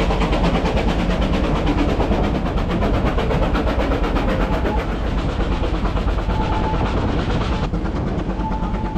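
Vale of Rheidol narrow-gauge steam train running, heard from its open coach: a steady rush of running noise with a rapid, even beat. A faint high tone comes in briefly about six seconds in and again near the end.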